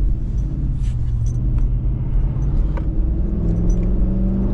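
Ford 7.3-litre gas V8 of a 2024 Super Duty pickup, heard from inside the cab, pulling steadily under acceleration in the lower gears with road rumble underneath. The engine note steps a little higher about three seconds in.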